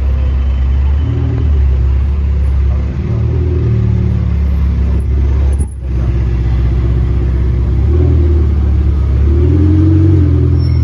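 Ferrari 488 Pista's twin-turbo V8 running with a deep, steady rumble, its note rising and falling with a few light throttle blips.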